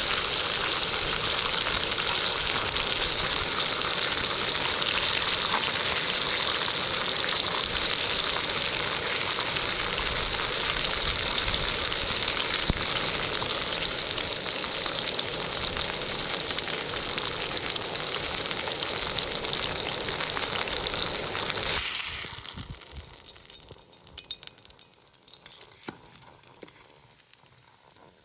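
Steak sizzling as it cooks, a steady frying hiss that cuts off suddenly about 22 seconds in, leaving only faint scattered ticks.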